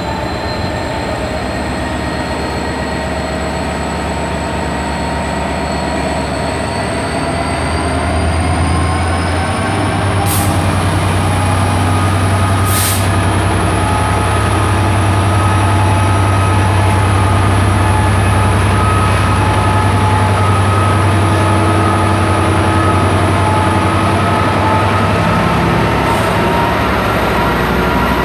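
Freightliner Class 66 diesel locomotive departing at the head of a long freight train. Its two-stroke V12 diesel runs with a deep steady drone that grows stronger about ten seconds in as it pulls away, over a high whine that rises in pitch, while the wagons roll past.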